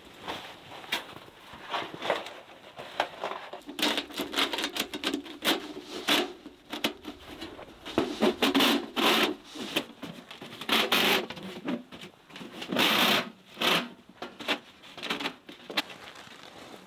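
Long metal stovepipe being handled and shifted against the tent's fabric, with irregular scraping and rustling in uneven bursts.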